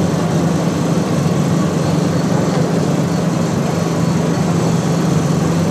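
Steady hum of a Mumbai suburban electric train standing at the platform, its onboard equipment droning low and unchanging over a wash of station noise.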